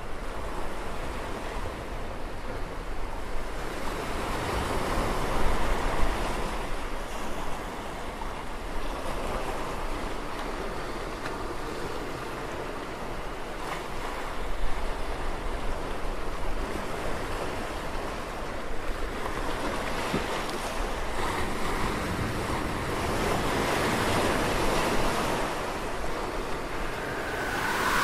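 A steady rushing, wind-like noise that swells and eases every few seconds, with no distinct events.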